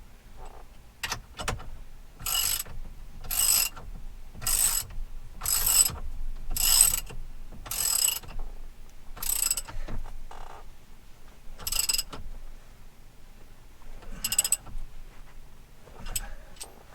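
Hand socket ratchet tightening the steering-wheel retaining nut on a Chevy Silverado's steering column: about ten back-swings, roughly one a second, each a short run of pawl clicks, with brief pauses between.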